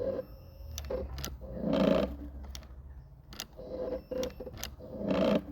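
A home-modded electric lawnmower's motor stuttering in short bursts with sharp clicks in between, struggling to get started.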